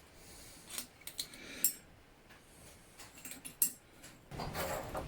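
Small metal parts and hand tools being handled on a workbench: scattered light clicks and clinks, then a rougher rubbing scrape starting near the end.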